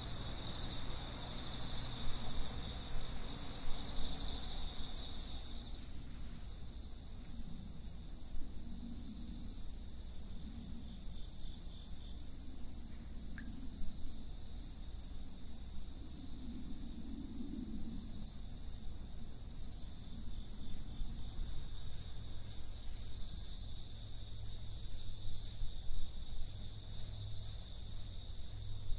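A chorus of autumn crickets, bell crickets (suzumushi) among them, singing steadily in several overlapping high pitches, with a faint low rumble beneath.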